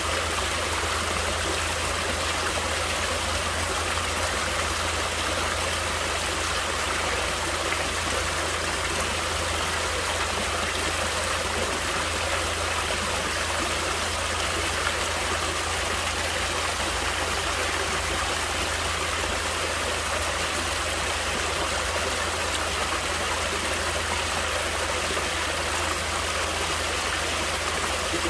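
A natural stream of water flowing, a steady even rush with no breaks or changes.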